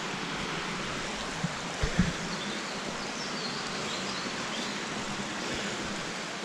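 Stream water rushing steadily over rocks, with a couple of brief low knocks about two seconds in.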